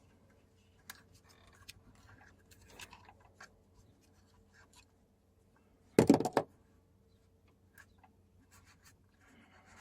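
Faint scratching and small clicks of Teflon thread-seal tape being wrapped onto a pipe fitting's threads, with a short clatter of hard knocks about six seconds in.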